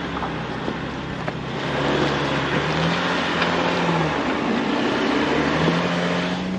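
Jeep engine pulling along a dirt trail, its pitch rising about halfway through, dropping, then rising again near the end as the throttle changes, over a steady rush of tyre and road noise.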